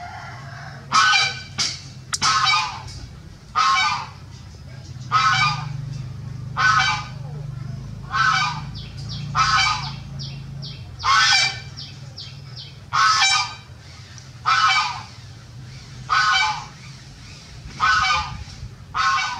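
An animal calling over and over, one short harsh call about every second and a half.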